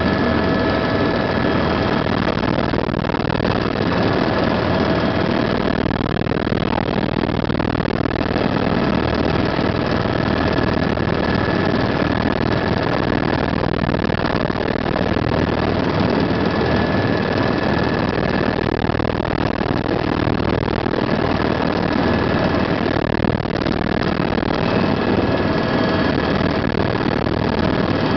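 Tour helicopter in flight, heard from inside the cabin: a steady, unbroken drone of engine and rotor with a constant high whine on top.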